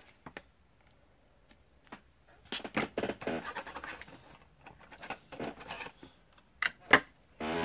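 Trading cards and their plastic and foil packaging being handled: light scraping and rustling in short spells, then a couple of sharp clicks near the end.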